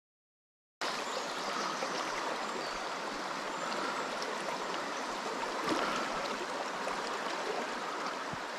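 Silent for the first second, then the steady rush of a shallow river running over riffles starts abruptly and carries on evenly.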